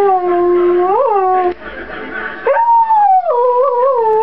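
An English setter howling along to a TV commercial: a long howl that slides down in pitch with a short upward yelp near its end, then after a break of about a second a second long howl.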